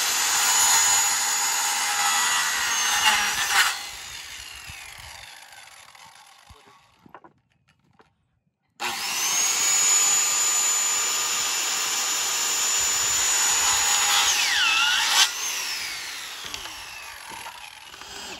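Corded circular saw cutting across a pine board, twice. Each cut is a steady high-pitched whine over the blade's rasp through the wood. Each ends as the blade clears the board, and the motor winds down with a falling whine.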